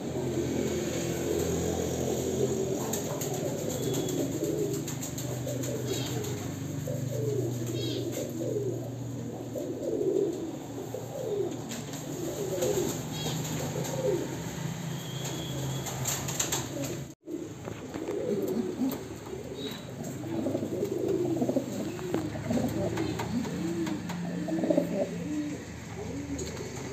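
Caged domestic pigeons cooing, one low rolling coo after another, with a few faint high chirps. The sound breaks off briefly about two-thirds of the way through.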